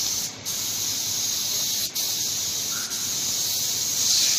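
Compressed-air paint spray gun hissing steadily while spraying paint onto a car bumper, cutting out briefly about three times as the trigger is let off between passes.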